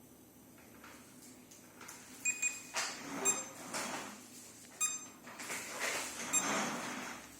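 Mechanical clicks from a faulty Life V7S robot vacuum cleaner or its handling: about five sharp clicks with a brief metallic ring, between short rustling or whirring swells, starting about two seconds in.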